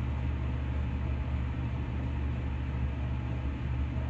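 Car engine running at a standstill, heard from inside the cabin as a steady low rumble.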